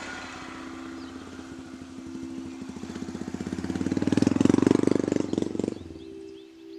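Motorcycle engine running as the bike rides up a dirt trail and passes close by, growing louder to a peak about four to five seconds in, then fading away.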